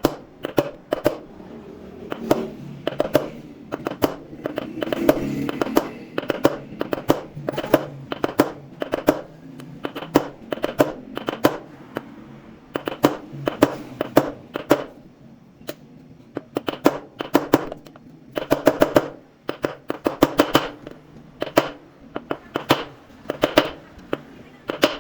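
Repeated sharp metallic knocks and clicks, often several in quick succession, from hand tools working on a washing machine during teardown for a bearing replacement.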